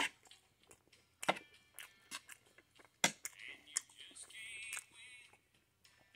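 A metal spoon clinking and scraping on a plate of fried rice, with three sharp clinks about a second and a half apart, and soft chewing in between. A faint high warbling sound comes in about three seconds in and stops near five.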